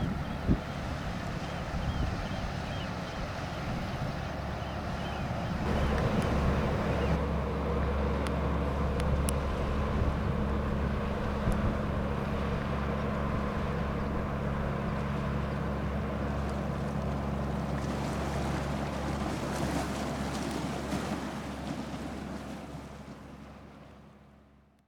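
A boat's engine running with a steady low hum, which grows louder about six seconds in; the sound fades out near the end.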